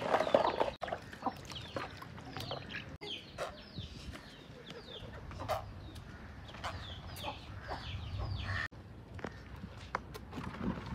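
Chickens clucking, a run of short high calls repeated throughout.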